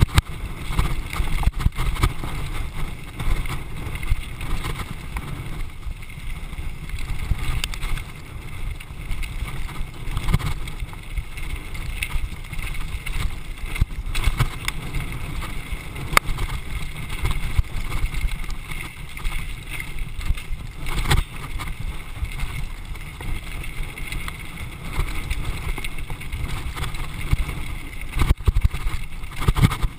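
Downhill mountain bike descending a rough dirt track at speed: wind buffeting the microphone in a steady rumble, with frequent rattles and knocks from the bike jolting over bumps.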